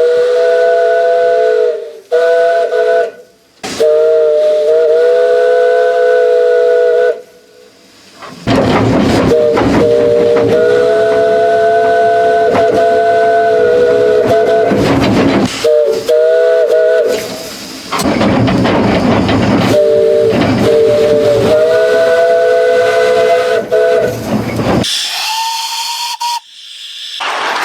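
British train horns sounding two notes together in a run of separate blasts, from about a second to six seconds long, heard from inside the driver's cab. The longest blast comes in the middle over loud running noise, and near the end a higher single horn note sounds twice.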